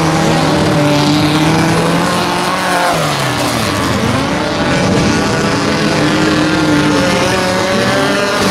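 Race car engines of stripped Volkswagen Beetle off-road racers running hard on a dirt track, revving up and down, their pitch dropping and climbing several times as the drivers lift off and accelerate.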